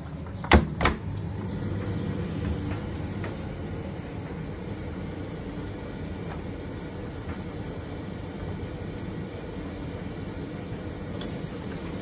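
Door of a Simpson Eziloader SDV401 4 kg clothes dryer shut with two loud clacks about half a second in. The dryer then runs steadily, its motor humming and the drum tumbling a load of towels.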